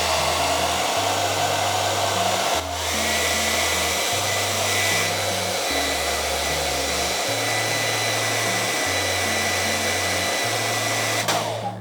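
Handheld hairdryer blowing steadily, with a thin high whine on top, used in place of a heat gun to heat a phone for opening. It cuts off sharply near the end.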